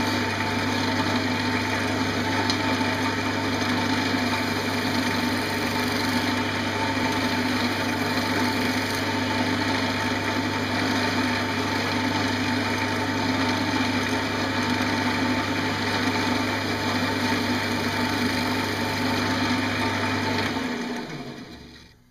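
Wood lathe running with a steady hum while a gouge cuts green pear wood turning on it, throwing shavings. About twenty seconds in the lathe is switched off and the sound dies away as it spins down.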